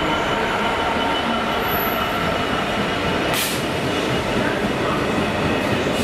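Freight train of tank-container wagons hauled by a Class 66 diesel locomotive rolling past: a steady loud rumble of wheels on rail, with brief high hissing bursts about three and a half seconds in and again near the end.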